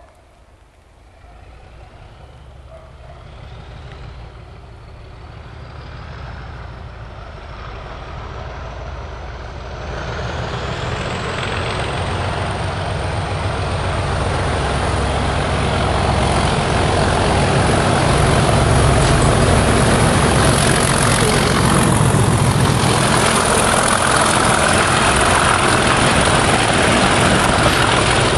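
A pair of Class 37 diesel locomotives, their English Electric V12 engines working, approaching and growing steadily louder, with a high whistle climbing in pitch over the first ten seconds or so. The engine sound is loud and steady from about halfway on as the locomotives and their wagons draw alongside.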